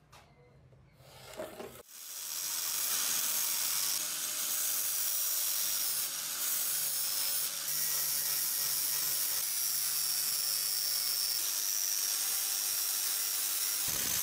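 Angle grinder with an abrasive polishing disc running against the steel head of a hammer. It comes in about two seconds in and then holds as a steady hiss with a high whine.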